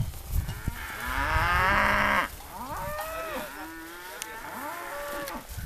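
Cattle mooing: one loud, long bawl about a second in, then several shorter moos that bend up and down in pitch.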